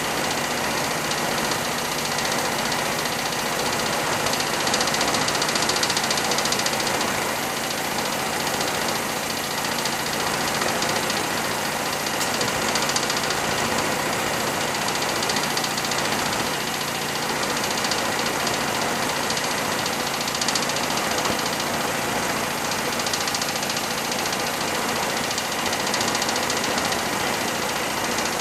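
Air-charged alpha Stirling engine, built on a Chrysler RV2 air-conditioning compressor, running steadily with no load on its propane flame heater, a constant mechanical running sound over a steady hiss.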